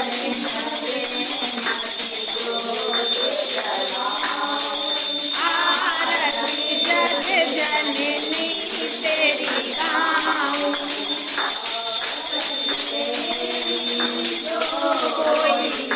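Hindu devotional song of the aarti or bhajan kind: a sung melody over a steady jingling percussion beat.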